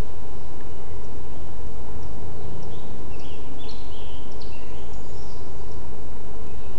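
A few short bird chirps, clustered from about two and a half to five seconds in, over a loud, steady low rumble.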